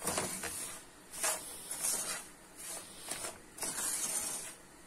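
Wooden spoon stirring browned semolina roasting in butter and oil in a frying pan: dry, hissing scrapes, one every half second to second, at an irregular pace. The semolina is near the end of its roasting, well coloured.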